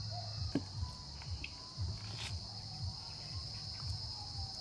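Insects, likely crickets, keeping up a steady, unbroken high-pitched drone, with a few faint taps mixed in.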